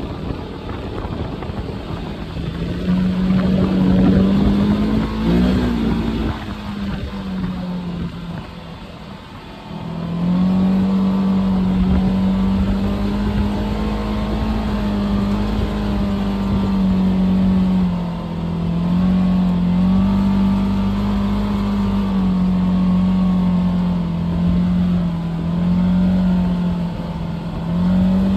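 Side-by-side UTV's engine droning at a fairly steady pitch while driving on a gravel road, with tyre and road noise. It eases off and goes quieter for a couple of seconds about eight seconds in, then picks back up and holds its drone, with small rises and falls in pitch.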